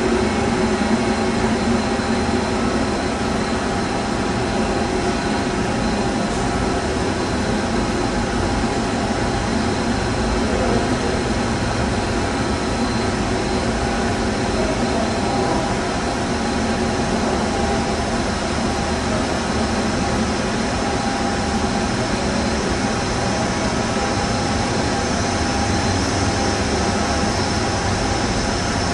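Steady machinery noise of a boiler plant: a loud, even mechanical drone with a constant thin high whine, unchanging throughout.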